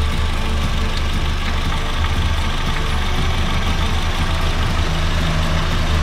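Honda Fit GD3's four-cylinder engine idling steadily with the air conditioning on and its compressor running, just after a refrigerant top-up meant to quiet the compressor's noise.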